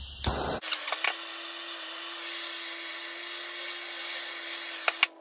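Propane hand torch hissing, with a couple of sharp clicks about a quarter second and a second in, then the lit flame burning with a steady hiss that cuts off near the end.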